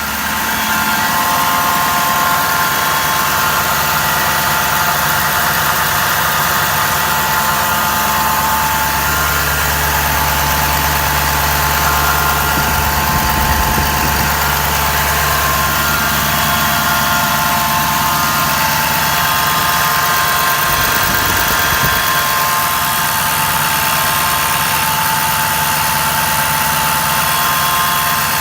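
Ford 6.7 Powerstroke V8 turbo-diesel idling with a steady whine from the driver's side of the engine, starting as soon as it is started. The whine comes from a failing alternator.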